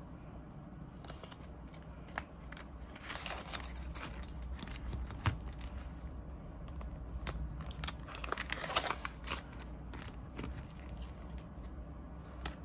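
Clear plastic zipper pouches in a cash-envelope binder being unzipped and handled, with crinkling plastic and rustling paper bills. The handling comes in irregular clicks and rustles, busiest about three seconds in and again about eight to nine seconds in.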